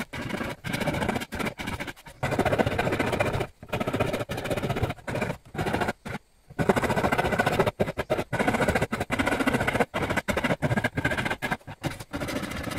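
Hand tool scraping and shaving the wooden stem of a gamari-wood plate, in irregular strokes with short pauses.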